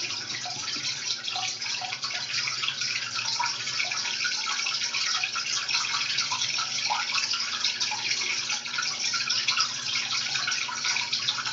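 Shallow creek water running and trickling, a steady rushing with small bubbling notes.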